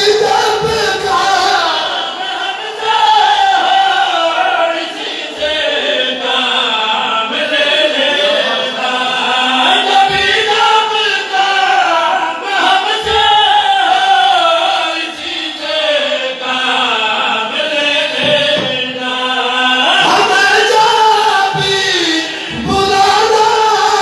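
Male devotional chanting: long melodic phrases, held and bending in pitch, sung without a break.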